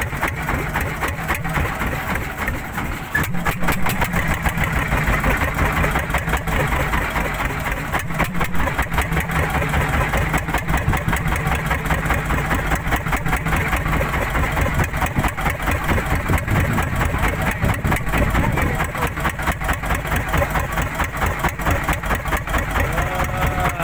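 Small wooden fishing boat's engine running steadily, with a fast, even chugging.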